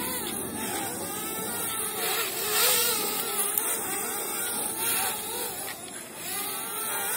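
DJI Spark quadcopter's propellers whining, the pitch wavering up and down as the motors speed up and slow.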